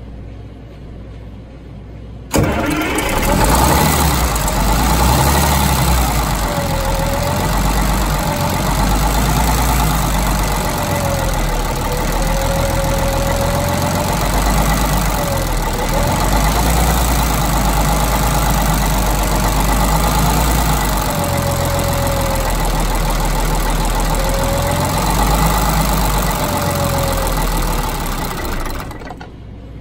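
Detroit Diesel 6-71 two-stroke inline-six marine diesel running with its valve cover off. It comes in suddenly about two seconds in and runs at idle, with a whine that wavers up and down in pitch, then stops near the end. The engine is running again after sitting for years, and sounds nice.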